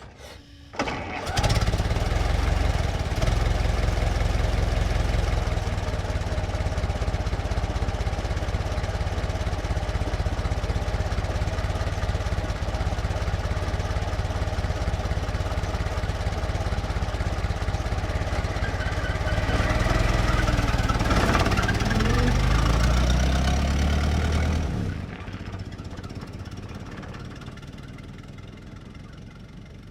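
1924 Ford Model T stake bed pickup's four-cylinder engine starting about a second in and idling steadily. Around twenty seconds in it revs with rising pitch as the truck pulls away at medium speed, then fades out over the last few seconds as it drives off.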